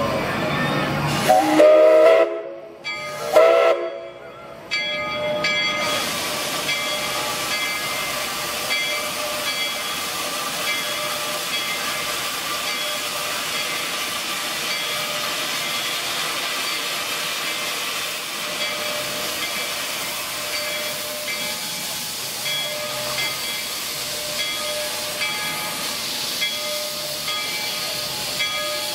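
Steam whistle of 1881 Baldwin narrow-gauge steam locomotive No. 340 sounding two blasts, the first about a second in and the second shorter about three seconds in. A steady hiss of steam venting from the open cylinder cocks follows.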